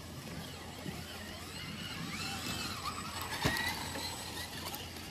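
Small-scale RC crawler trucks' electric motors and drivetrains whining, the pitch rising and falling with the throttle, loudest as a truck passes close. A single sharp knock about three and a half seconds in.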